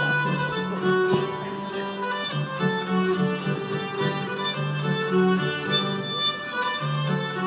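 A Swedish folk dance tune played on fiddle, a lively melody over sustained lower notes.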